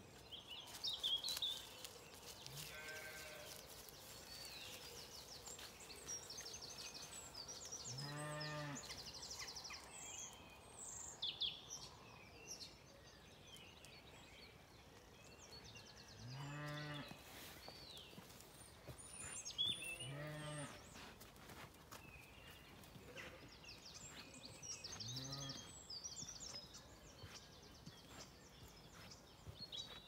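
Zwartbles sheep bleating five times, separate deep calls a few seconds apart, over songbirds singing with high chirps and rapid trills.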